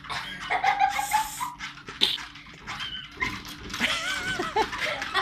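Small dogs whining and yipping in short, wavering high cries while they scramble on a running electric treadmill. The treadmill hums steadily underneath, with the clicking and scrabbling of paws on the belt.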